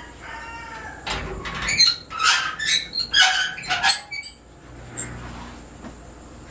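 Padlock and chain being worked loose on a metal security gate, then the gate pulled open: a quick run of metallic clinks, rattles and squeaks, loudest from about one to four seconds in.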